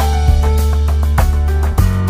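Background music with a steady beat and a plucked-guitar melody.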